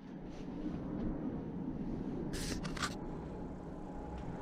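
Quiet handling noise as the keyboard's USB cable is plugged in: a brief scrape and then a single click about three seconds in, over a low steady hum.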